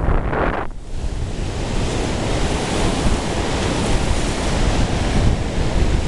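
Rough Caspian Sea surf breaking and washing in as a continuous rushing noise, with wind buffeting the microphone.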